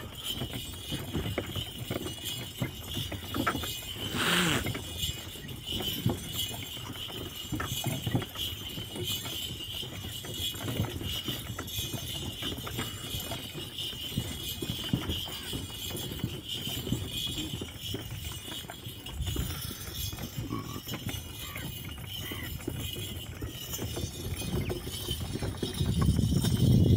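Camel-drawn wooden cart rolling along a sandy track: the camel's footfalls and the cart's wooden bed and shafts knocking and rattling, with a light jingle of metal from the chain harness. A louder low sound comes in near the end.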